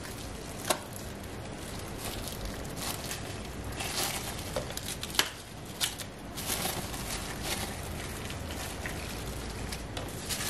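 Plastic cling film crinkling and rustling as it is rolled and tucked around a stuffed chicken breast on a wooden board, with a few sharp clicks along the way.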